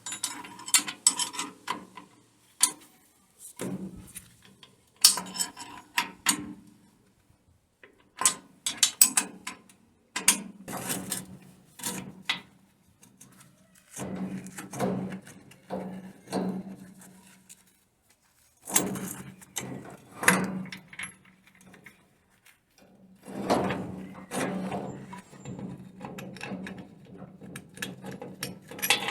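Hand tools and metal car parts clinking and clanking in irregular bursts with short pauses, with ratchet-like mechanical clicking, as the rear brakes, suspension and drive shafts are taken off.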